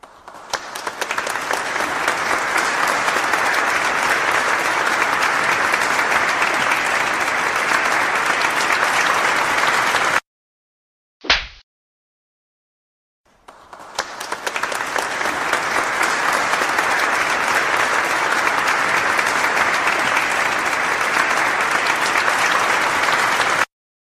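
Applause sound effect: a crowd clapping that swells in over a second or two and cuts off abruptly after about ten seconds. About a second later comes a single short, sharp burst. Then the same applause swells in again and cuts off abruptly.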